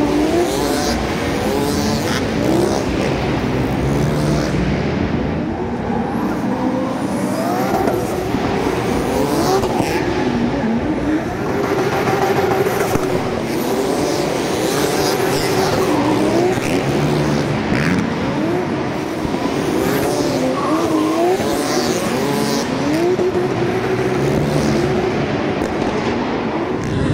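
Motor engines revving hard, their pitch sweeping up and dropping back over and over, with more than one engine heard at once.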